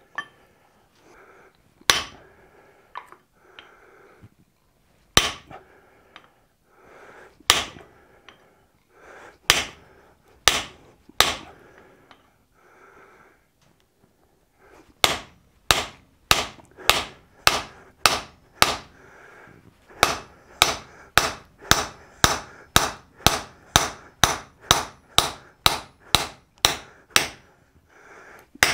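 Hand hammer striking a hot punch held in a red-hot wrought iron hammer blank on the anvil, punching the hammer's eye through from the second side. A few spaced blows at first, then from about halfway a steady run of blows about two a second.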